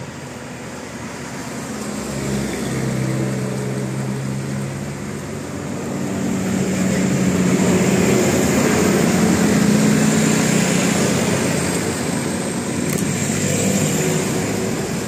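A bus engine running as the bus passes close by on the road, with traffic noise. It grows louder over the first few seconds, is loudest about halfway through, then eases off a little.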